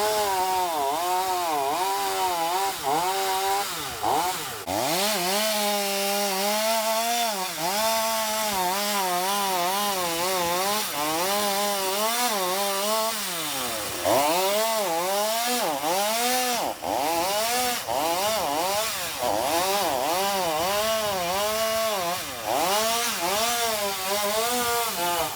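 Two-stroke chainsaw cutting wood, its engine note dipping under load and picking back up again and again as it works through the cuts.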